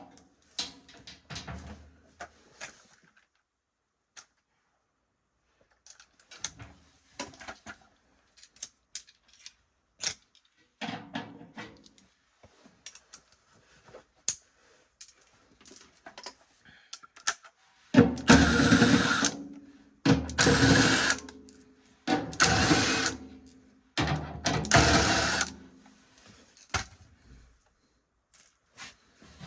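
Intermittent clicking and clattering of tools and sheet-metal parts being handled on a gas furnace, with four louder spells of noise, each about a second long and about two seconds apart, in the second half.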